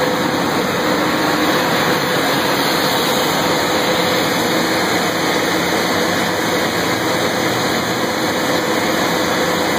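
Wheel loader's diesel engine running steadily, a loud even rumble with a faint steady hum through it.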